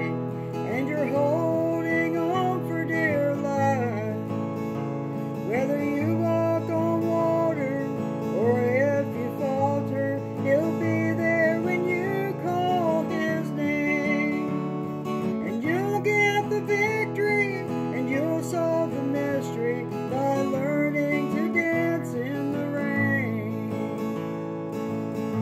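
A woman singing a song while playing an acoustic guitar. Her voice drops out near the end, leaving the guitar on its own.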